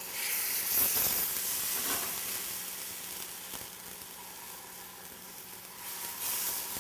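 Hot chicken stock ladled into a hot pan of toasted arborio rice, sizzling as it hits, strongest at first and then dying down toward a simmer. The sizzle flares up again near the end as a second ladleful goes in.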